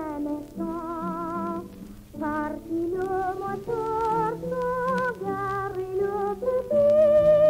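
A boy soprano singing a French song with vibrato, accompanied by piano. He ends on a louder held note.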